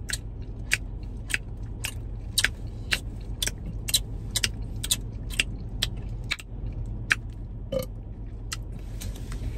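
Steady low hum inside a car cabin, with sharp ticks about twice a second, slightly uneven in spacing.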